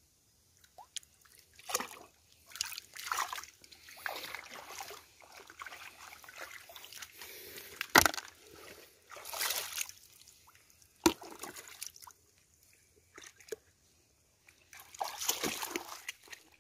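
Shallow muddy stream water sloshing and splashing irregularly as someone wades through it in rubber boots and reaches into it by hand, with two sharp splashes about eight and eleven seconds in.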